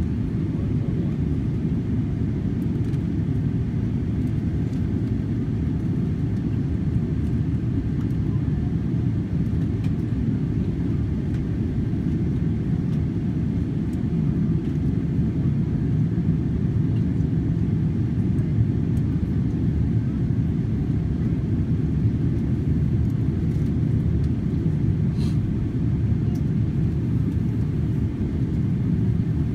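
Steady low rumble inside the cabin of a Boeing 777-300ER taxiing, from its GE90 engines at taxi idle and the airliner rolling along the taxiway.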